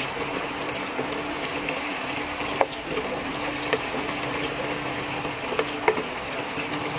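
Pork, sliced hotdogs, potatoes and carrots sizzling as they fry in oil in a non-stick wok, stirred with a spatula. Under the steady sizzle come a few short sharp clicks, the strongest about two and a half seconds in and near the end.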